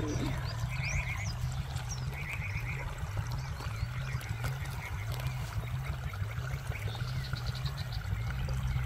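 Water from a hose pouring steadily into a flooded armadillo burrow, a continuous low gurgling. Short high trills sound a few times behind it.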